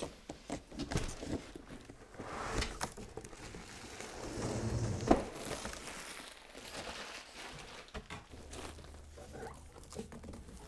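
Cardboard shipping boxes being opened and handled: irregular scraping and rustling of cardboard flaps, with one sharp knock about halfway through.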